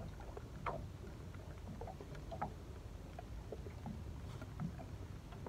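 Faint low rumble of wind and water lapping around a small boat, with scattered light irregular ticks and taps.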